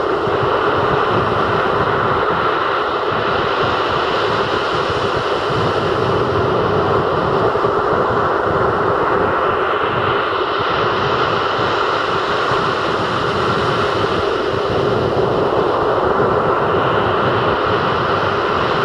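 Rough sea surf breaking continuously on a sandy beach: a steady, loud rush of waves, the hiss swelling as waves break about halfway through and again near the end.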